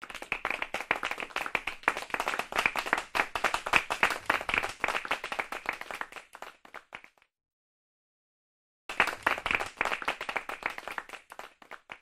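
Applause: many hands clapping in a dense patter that tails off after about seven seconds, then starts up again after a short break.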